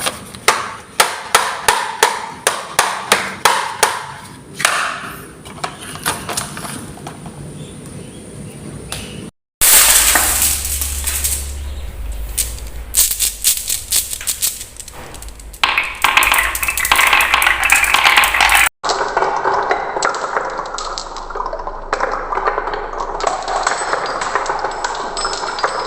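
Marbles rolling and clacking down wooden marble run tracks. First a run of sharp single clacks, two or three a second, that fade and come less often; then, after abrupt cuts, denser rolling and clattering, with a low rumble under the middle part.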